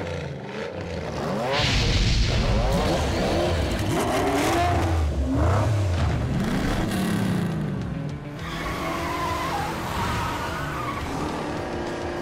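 Cartoon race-car engine sound effects: several engines revving up and down in quick rising and falling glides as the cars race past.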